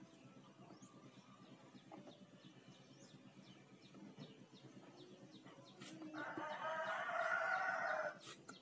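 A rooster crows once, a long call starting about six seconds in, louder than anything else. Faint bird chirps sound underneath.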